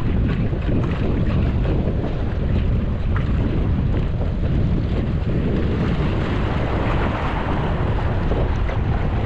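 Steady wind buffeting the microphone, with the sea's waves washing behind it.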